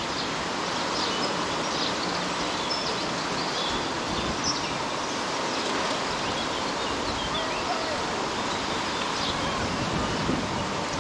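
Steady outdoor hiss with brief, high bird chirps scattered through it.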